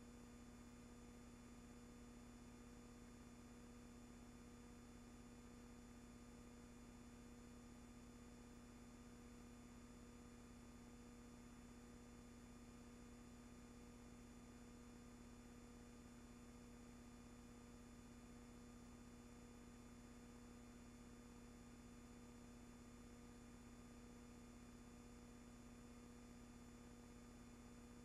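Near silence: a faint, steady electrical hum and hiss with nothing else, the empty soundtrack of silent 1918 footage.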